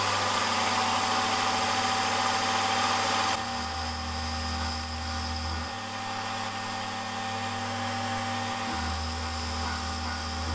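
Milling machine spindle running steadily with a whine while an end mill cuts an angled face on a small metal valve rocker. About a third of the way in the sound changes abruptly. After that a low hum comes in twice, each time for about two seconds.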